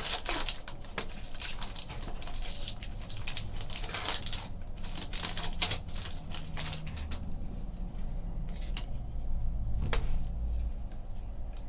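Trading cards being handled and flipped through by hand: a run of soft clicks and brushing, papery sounds, busiest in the first half.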